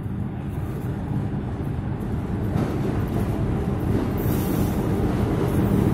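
6000-series diesel locomotive hauling a train of bogie oil tank wagons approaching, its engine rumble growing steadily louder. A brief high hiss sounds about four seconds in.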